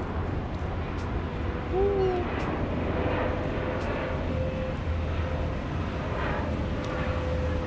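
Steady low mechanical rumble with a constant higher hum.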